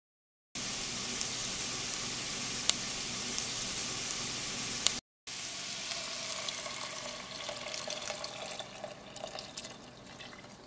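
Rice and onion sizzling in oil in a ceramic pot while being stirred with a silicone spatula, a steady hiss with a few sharp ticks. About halfway through it cuts off and water is poured into the pot from a ladle, a steady pour that slowly fades.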